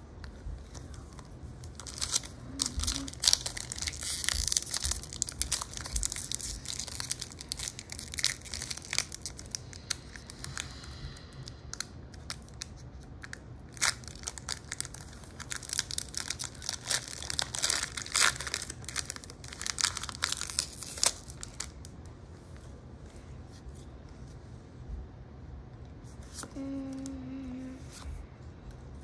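Pokémon booster pack wrappers being torn open and crinkled: a dense run of crackling from a couple of seconds in until about two-thirds through, then quieter, sparser rustling.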